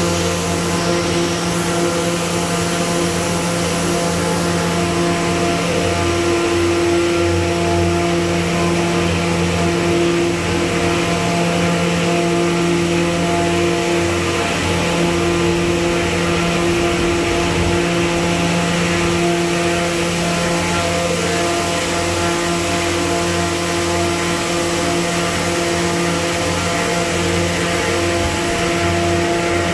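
Five-layer corrugated cardboard production line running: a steady machine drone with several held hum tones over a constant hiss.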